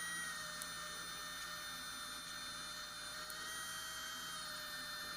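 Small electric motor of a 3Doodler 3D printing pen giving a steady, faint whirring hum as it feeds plastic strand through the heated nozzle.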